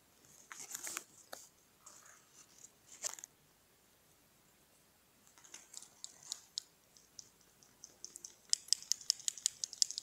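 Faint, scattered crisp clicks and light rustles close to the microphone, with a quiet spell in the middle and a quick run of about a dozen sharp clicks near the end.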